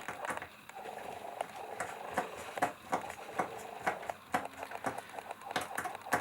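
Small screwdriver clicking and tapping against screws while they are backed out of a laptop's bottom panel, in irregular light clicks about two a second.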